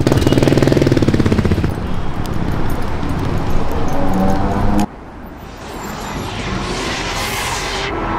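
A motorcycle engine running loudly with a rapid pulsing beat, cutting off abruptly about five seconds in. After it comes a quieter stretch with a rising whoosh near the end.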